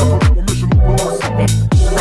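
Electronic dance music backing track, with a steady kick drum about twice a second over a bass line and held chords.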